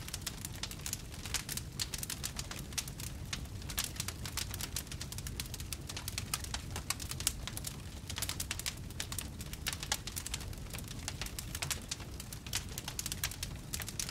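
Wood fire in a fireplace, crackling and popping: many quick sharp snaps over a low, steady rumble.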